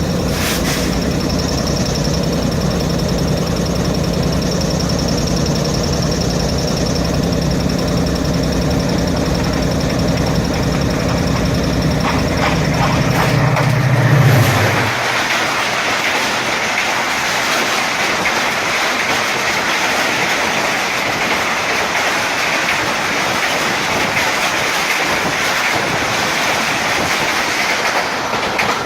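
Diesel-electric locomotive passing at speed: its engine's steady drone builds to its loudest about halfway through, then drops away. A steady rush of train wheels rolling on the rails follows, and it cuts off near the end.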